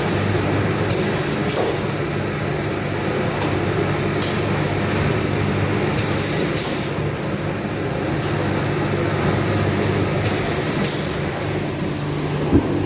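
Automatic shrink-wrap sealing and cutting machine with heat shrink tunnel running with a steady hum. A short hiss comes three times, about every four to five seconds, and a sharp click sounds near the end.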